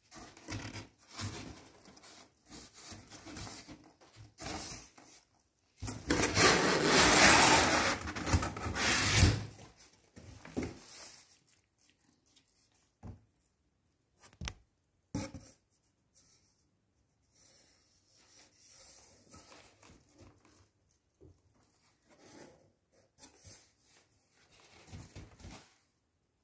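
Cardboard shipping box being handled and opened by hand: rubbing and scraping of cardboard, with a long, loud scrape of about three and a half seconds starting about six seconds in, then scattered faint rustles and a few light knocks.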